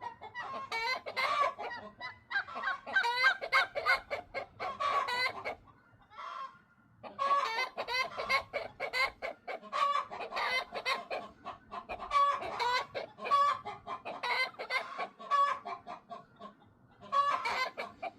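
Backyard hens clucking and cackling in rapid repeated calls, the egg song that hens raise around laying. There is a short lull about six seconds in and another shortly before the end.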